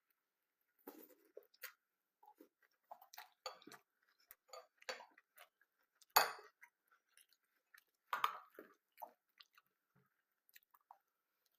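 Close-up crunching and chewing of cornflakes, irregular crisp crackles with a sharp loud crunch about six seconds in and another just after eight seconds.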